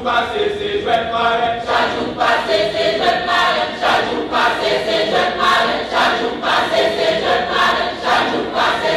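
A large church choir of women and men singing together in full voice, in evenly paced, rhythmic phrases.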